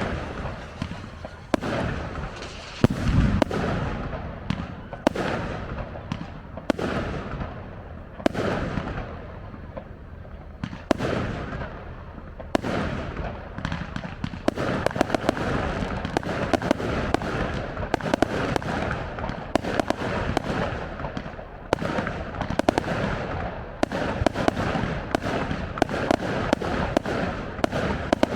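Fireworks display: aerial shells bursting one after another, a bang every second or two, each trailing off. From about halfway through, dense crackling fills in between the bangs.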